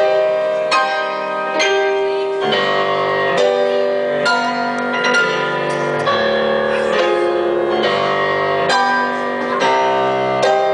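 Upright piano playing chords and a melody, a new chord struck about every second.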